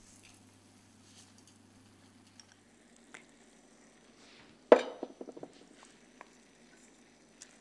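Rice tipped from a mesh strainer into a stainless steel pot, with faint rustling and light ticks. About five seconds in comes a sharp clank of kitchenware against the pot, then a quick rattle of clicks.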